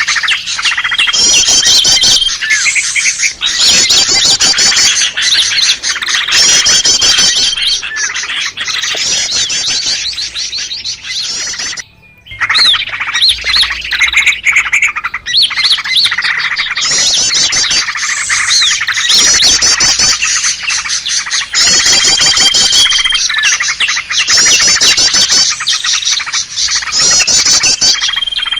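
A bird-trapping lure recording: many small songbirds calling densely together, with rapid chattering trills and a short steady whistle that recur every few seconds. The calls break off briefly about twelve seconds in.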